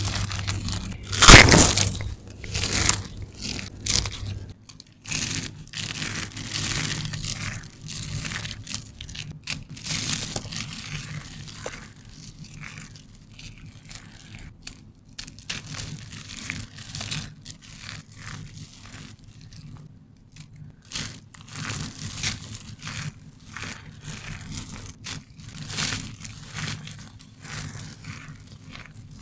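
Hands squeezing and rubbing dry, crumbled soap flakes and shavings: an irregular run of crunches and crackles, with one much louder crunch about a second in.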